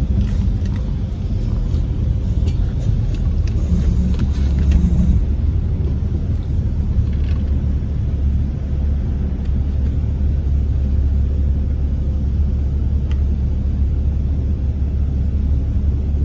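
Steady low rumble of a car's engine and road noise, heard from inside the cabin as the car moves slowly forward.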